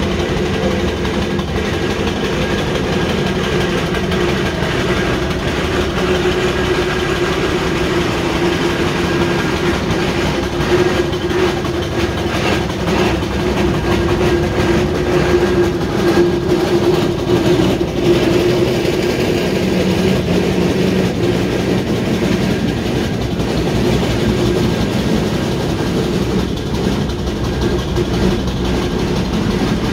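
Fowler steam road roller driving past at close range, its engine and gearing clanking over a steady mechanical hum. The clanking is loudest about halfway through as the roller draws alongside.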